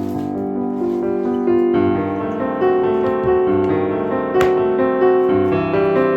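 Background piano music, gentle sustained notes changing every half second or so, with a single sharp click about four seconds in.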